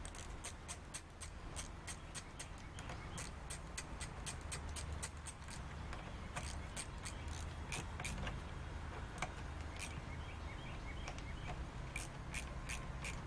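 Ratchet wrench clicking in quick runs, a few clicks a second, as the clamp bolt of a new battery terminal is tightened down onto the negative cable.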